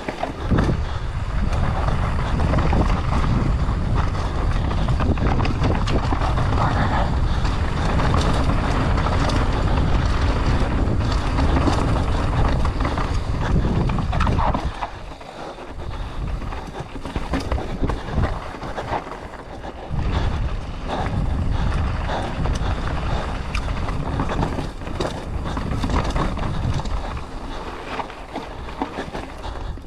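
Wind rushing over the microphone of a mountain bike descending a dirt trail at speed, with tyres rolling and many short knocks and rattles from the bike over rough ground. It eases briefly about halfway through.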